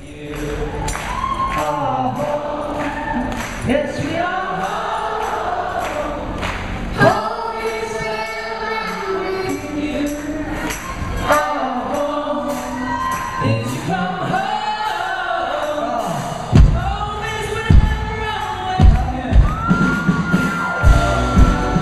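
Live band performing, with several voices singing over keyboards. A steady drum beat comes in about three-quarters of the way through, and a long held high note enters near the end.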